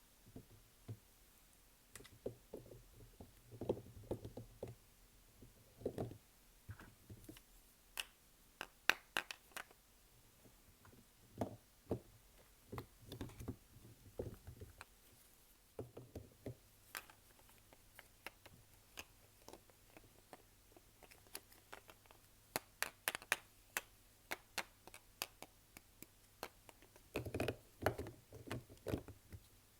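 Soap bars and their packaging being handled and unwrapped by hand: irregular sharp taps and clicks with soft knocks, coming in clusters.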